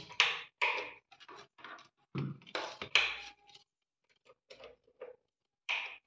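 Handling noise as tape is pulled and wrapped around wires on a plastic hair dryer: a string of short, irregular rustles and rips with a few soft knocks and brief pauses between them.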